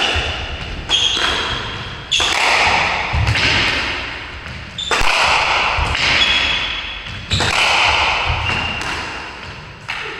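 Squash ball struck by rackets and smacking off the court walls, sharp echoing cracks about every one to two seconds, with short high squeaks of court shoes on the wooden floor.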